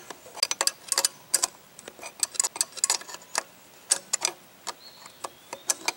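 A 12 mm wrench tightening the nuts that hold a Weber carburetor to its intake manifold: a run of sharp, irregular metal clicks and ticks, a few every second.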